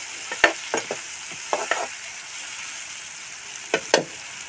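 Sliced onions and green chillies sizzling in a kadai, stirred with a steel spatula that scrapes and knocks against the pan several times, the loudest strokes about four seconds in.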